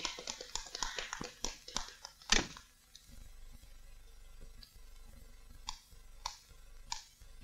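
Quick footsteps and shuffling of several people hurrying out of a room, ending with a louder thud about two and a half seconds in. Then low hiss with three faint clicks about half a second apart near the end.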